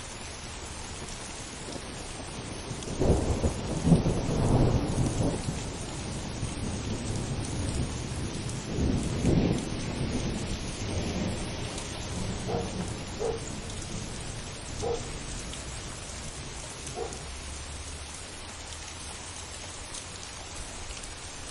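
Thunderstorm: steady rain with a long roll of thunder that starts about three seconds in, is loudest in its first few seconds, swells again, and rumbles away with a few short cracks before fading out.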